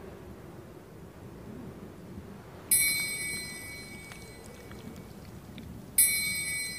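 Two bright chime-like strikes in the film's soundtrack, about three seconds apart. Each rings high and fades over a second or so, over a low, steady background noise.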